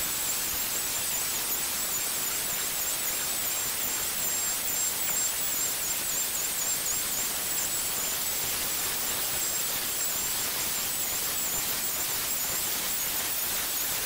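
Router on a slab-flattening sled, running steadily while surfacing a live-edge walnut slab: a high-pitched motor whine that wavers slightly, over a steady hiss of cutting.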